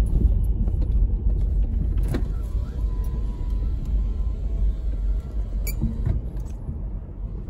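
Subaru Outback driving slowly over snow-covered ground, heard from inside the cabin: a steady low rumble from the tyres and engine, with a few sharp knocks and clicks as it rolls over the uneven surface.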